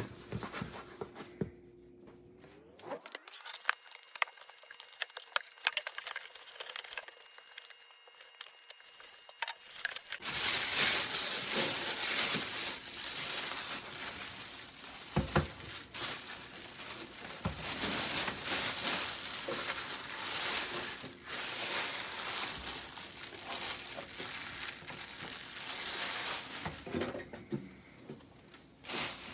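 Crinkling and rustling of handled packaging, with scattered sharp clicks and knocks. It is sparse for the first ten seconds or so, then denser and louder.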